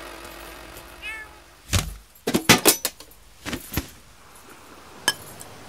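A cat's short meow about a second in, followed by a run of sharp, loud knocks and clicks, the loudest coming in quick succession midway, with one last click near the end.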